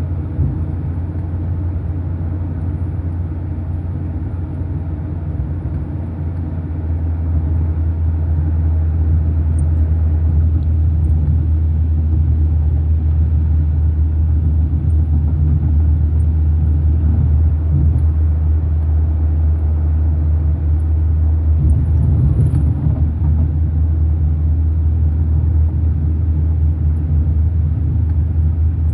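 Steady low rumble of a moving car's engine and road noise heard from inside the cabin, growing louder about seven seconds in and then holding steady.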